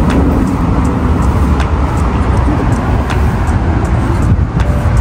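Diesel engine of a John Deere 50G compact excavator running steadily, with scattered light metallic clicks over it.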